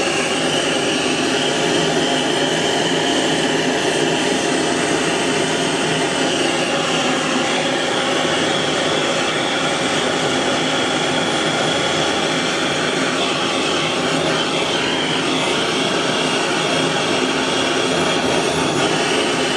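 Gas torch flame burning with a steady hiss, heating a brass traction-engine oiler top to silver-solder it.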